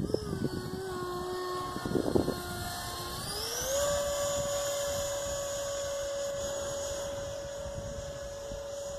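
Model jet's E-flite Viper 70 mm electric ducted fan on 6S whining in flight, its pitch rising smoothly about three and a half seconds in as the throttle is opened, then holding steady. A brief low rumble, like wind on the microphone, comes about two seconds in.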